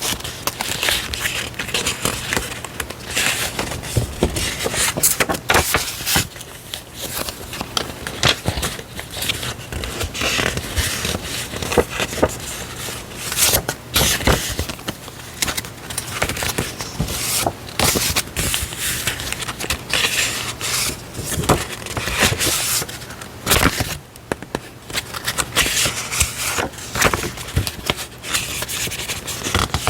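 Stationery being handled close to the microphone: paper and packaging rustling and crinkling, with many small taps and clicks.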